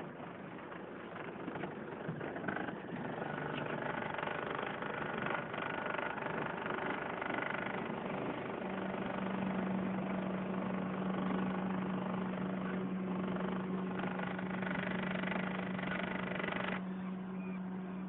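Boat's outboard motor running steadily, with water noise under it; a steady low hum sets in about halfway through.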